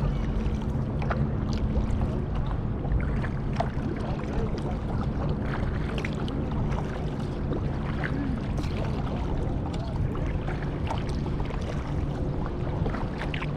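Kayak on open water: water splashing and lapping around the hull, with scattered small splashes and knocks throughout, over a steady low rumble.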